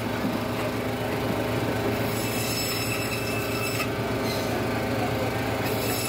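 A steady mechanical hum over a constant noisy background. A sharper high-pitched hiss or scrape rises over it a few times, each lasting about a second.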